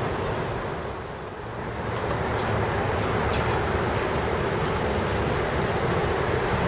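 Steady rumble of heavy road-construction machinery running on a city street, mixed with traffic; it swells slightly about two seconds in.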